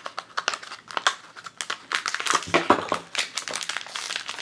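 Clear plastic packaging crinkling and crackling in the hands as a small keychain box is opened and the keychain is pulled out of its plastic bag: a quick, uneven run of sharp crackles.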